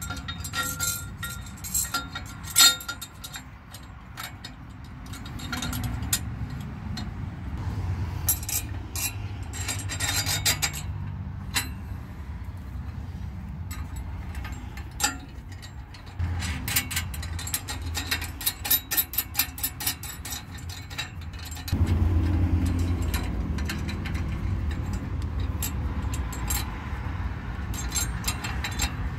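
Steel exhaust U-bolt clamp and hanger being fitted by hand around an exhaust pipe: irregular clinks and rattles of loose metal parts, with nuts started on the threads. A low rumble runs underneath and grows louder about two-thirds of the way through.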